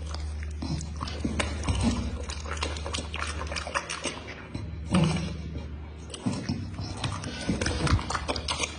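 Dog licking and smacking its lips, a run of short wet mouth clicks, with a brief low vocal sound about five seconds in, over a steady low hum.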